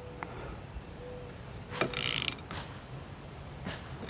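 A ratchet wrench clicking as it tightens the castle nut on an outboard's propeller shaft: a knock about two seconds in, then a short run of clicks.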